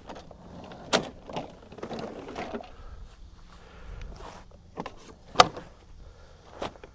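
Handles of two electric push lawn mowers being folded and the mowers handled: a series of clicks, clunks and rattles from latches and the handle frames, with the loudest knock a little past the middle.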